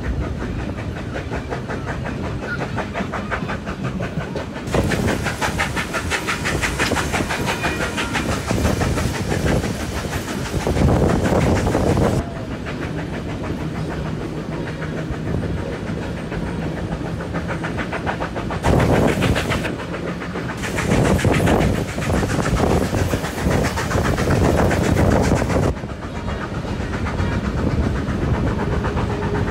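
Steam-hauled passenger train heard from an open carriage window: the wheels clatter over the rails under a steady rushing noise, which grows louder twice for several seconds at a time.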